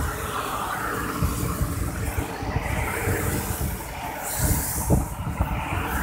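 Road traffic noise: a steady low rumble of passing vehicles, with a louder rushing sweep about four and a half seconds in.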